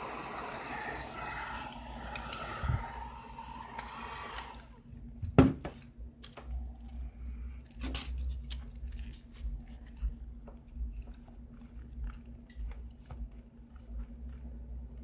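Heat gun blowing a steady rush of air that cuts off about five seconds in, followed by scattered light clicks and scrapes of tools on broken glass, with one sharp click shortly after the air stops.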